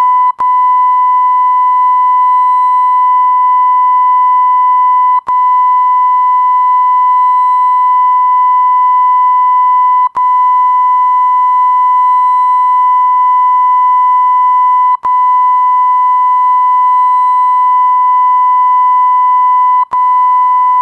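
Continuous 1 kHz censor bleep, a steady pure tone broken by a brief click and gap about every five seconds, where the looped segments join.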